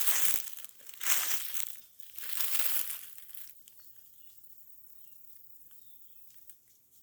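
Three crunching, rustling steps through dry leaf litter and undergrowth about a second apart, then quieter with a few faint ticks.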